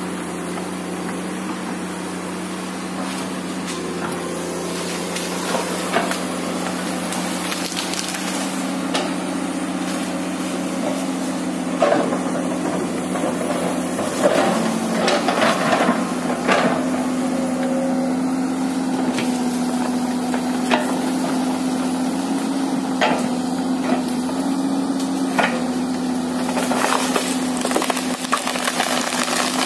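Komatsu PC200 excavator's diesel engine running steadily, its pitch stepping up and down as the hydraulics take load, while tree trunks and branches crack and splinter as the machine pushes them down. The sharpest snapping comes a little before halfway and again near the end.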